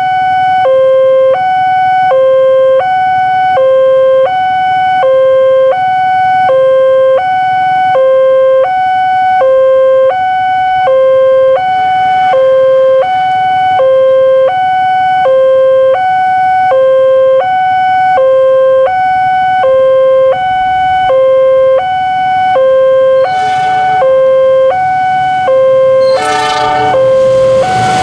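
Indonesian railway level-crossing alarm sounding its electronic two-tone warning, a lower and a higher tone alternating evenly, each held a little under a second. It signals that a train is approaching. Near the end a diesel locomotive's horn sounds and the noise of the arriving train rises over the alarm.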